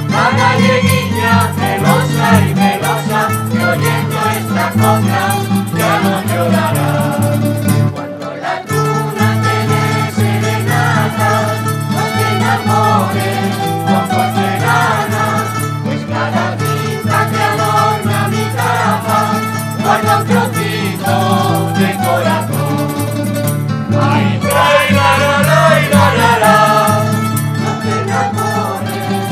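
A rondalla plays a popular Spanish song: bandurrias, laúdes and guitars are plucked in a steady rhythm under a violin, with a mixed choir singing along. The music dips briefly about eight seconds in.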